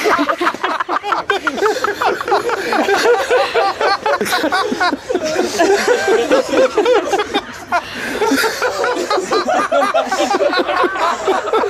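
Several people laughing at once: overlapping chuckles and giggles that keep going without a break, laughter spreading through a small group.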